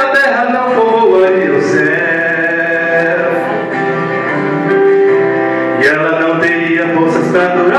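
Male singing in a Christian worship song, with long sustained, wavering notes.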